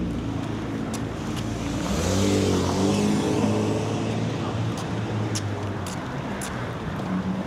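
Road traffic: a car accelerates past about two seconds in, its engine rising in pitch with a hiss of tyres, over a steady low engine hum.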